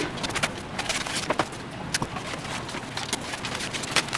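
Scattered light clicks and taps of hands working ribbon against a wooden door, over a steady background hiss.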